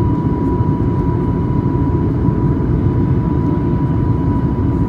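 Steady cabin noise inside a Boeing 737-800 on approach: a low, even rumble of engine and airflow noise, with a thin steady whine above it.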